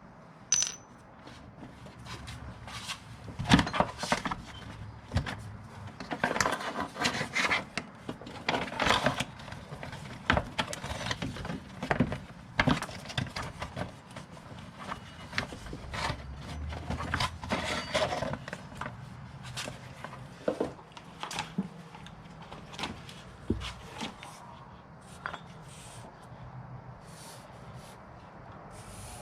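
Irregular metallic clinks, knocks and scrapes of hand tools and parts being handled during repair work, busiest in the first two-thirds and sparser towards the end.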